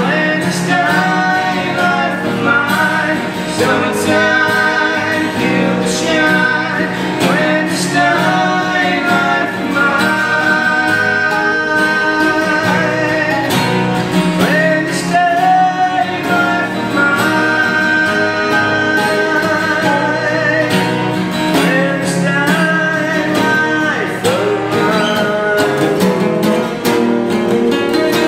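A song with a singing voice over strummed guitar and a full band, running steadily.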